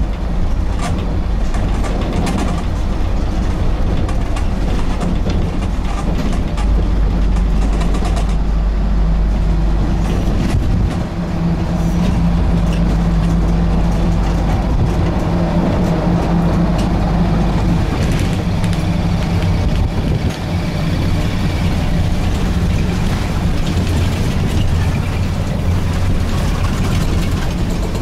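Ikarus 280.54 articulated bus's diesel engine running steadily under way, with two short dips in the sound about a third and about two thirds of the way through.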